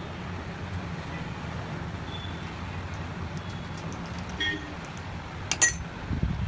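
Hammer tapping metal on a Royal Enfield shock absorber: a few light clicks, then one sharp ringing strike about five and a half seconds in. A steady low traffic hum runs underneath.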